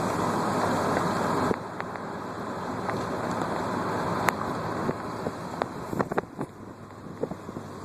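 Road and wind noise of a moving car heard from inside, a steady rushing that drops noticeably about a second and a half in. Scattered sharp clicks and knocks come in the second half.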